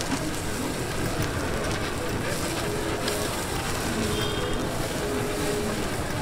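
Eels grilling over a charcoal grill with flames flaring up from the grate: a steady hiss of fire and sizzling, over constant background noise.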